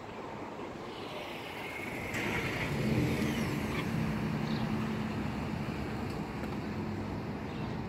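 A motor vehicle's engine running, getting louder about two to three seconds in and then holding a steady low hum.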